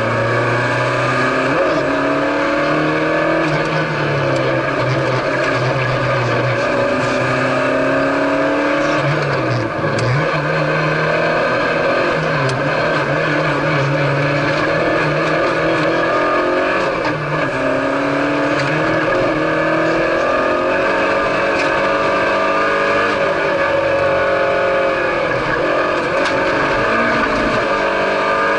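Citroen C2 rally car's engine at full effort, heard from inside the cabin, its pitch climbing and dropping again and again as the car is driven flat out.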